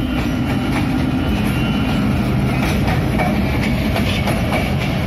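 A WDM3A diesel-electric locomotive (ALCO 16-cylinder engine) passes with its engine running in a steady low drone. The wheels clack over rail joints as the broad-gauge coaches follow, the clacks coming thicker from about halfway through.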